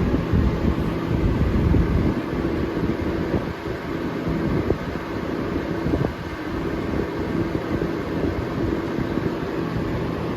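Box fan running on its high speed: a steady rush of air with a low motor hum. The airflow buffets the microphone in irregular gusts during the first couple of seconds.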